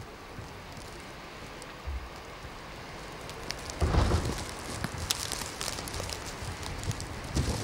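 Steady hiss of a snowstorm, then from about four seconds in the rising noise of an approaching train, with heavy low buffets of wind on the microphone.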